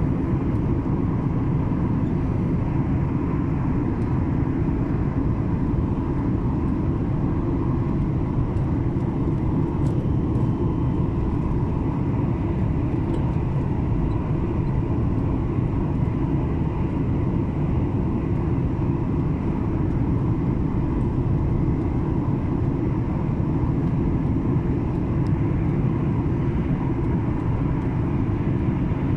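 Steady cabin noise of a Skymark Boeing 737-800 airliner in flight: a deep, even rush of jet engines and airflow with a faint steady whine on top.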